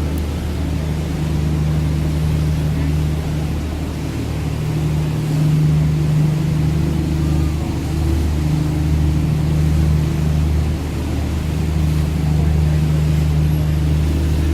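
Engine of a Bateaux Parisiens sightseeing cruise boat running steadily, a deep drone that swells and eases slightly every couple of seconds, with a hiss of water or wind beneath it.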